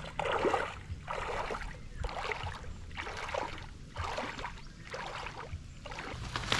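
Water splashing in a steady rhythm, about one splash a second.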